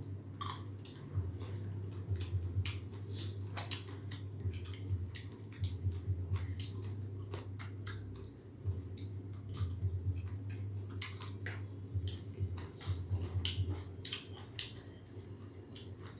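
A person chewing and biting food close to the microphone, with irregular wet clicks and crunches. A steady low hum runs underneath.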